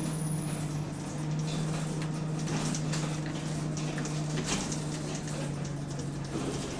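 Bus engine heard from on board, a steady low drone under a constant hiss and scattered light rattles, the bus having an exhaust leak.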